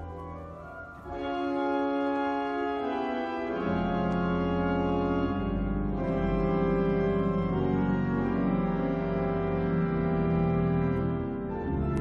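Cathedral organ playing slow, held chords in a quiet piece, recorded on a phone. The sound thins out briefly at first, a new chord comes in about a second in, and low pedal notes join a few seconds later.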